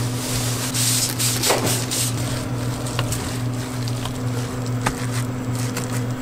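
Food-stall kitchen noise: a steady low machine hum under a hiss that swells for about a second near the start, with a few sharp clicks.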